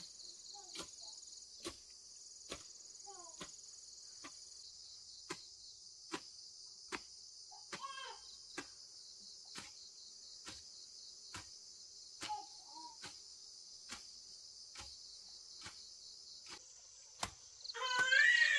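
A steady, high insect chorus trilling throughout, with a short sharp knock repeating a little more often than once a second.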